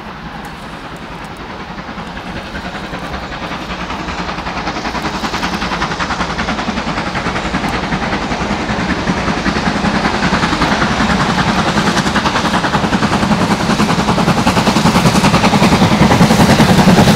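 BR Standard Class 9F 2-10-0 steam locomotive No. 92134 approaching under steam, its exhaust beats a rapid, even chuffing that grows steadily louder.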